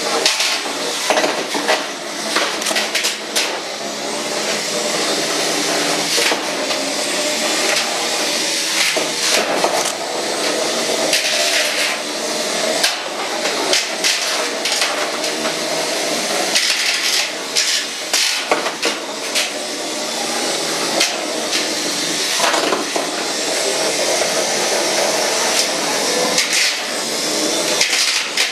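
Antweight combat robots fighting: small electric drive motors whine while the robots ram, scrape and clatter against each other and the clear plastic arena walls, with frequent sharp knocks.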